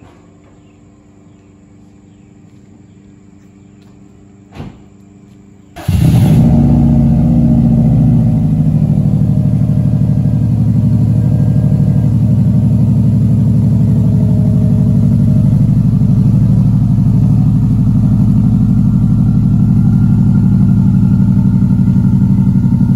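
Quiet at first, with a single knock about four and a half seconds in. Then, about six seconds in, a 2006 Subaru WRX STI's turbocharged flat-four engine is started and settles into a loud, steady idle.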